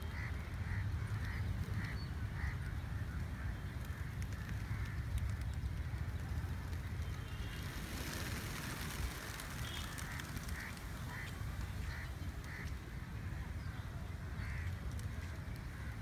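Wings of a large flock of feral pigeons flapping as they take off and circle, with a dense burst of wingbeats about halfway through as a big group lifts at once. Under them runs a steady low rumble of wind and surf, and short calls repeat about twice a second.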